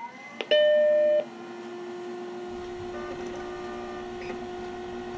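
Macintosh SE switched on: a click, then its startup beep, a single steady tone lasting under a second. After the beep a quieter steady hum from the running computer follows.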